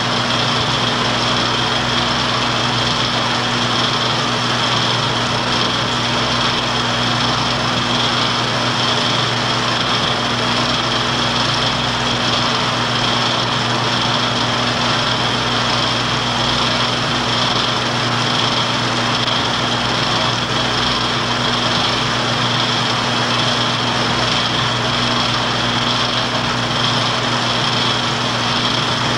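Steady mechanical whir of a film projector running, with a constant hum and a high whine that never change.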